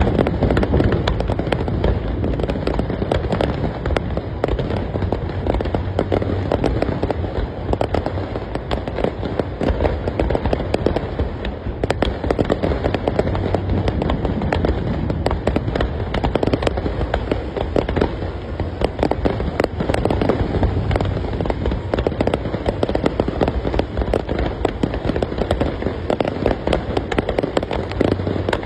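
Fireworks display: a dense, unbroken barrage of bangs and crackling shells going off in quick succession.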